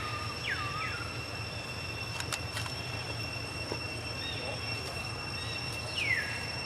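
Animal calls: short high calls that slide quickly down in pitch, one about half a second in and two close together near the end. Under them runs a steady high-pitched whine and a low hum.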